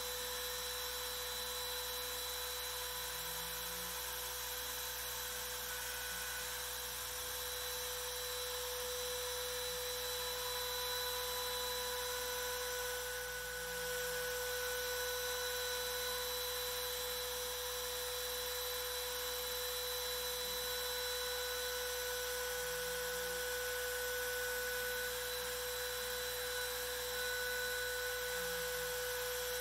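Makita trim router on a Carve King 2 CNC machine running with a steady whine as its V-bit carves lines into MDF. The carve is going slowly in multiple passes because the bit settings were entered wrong.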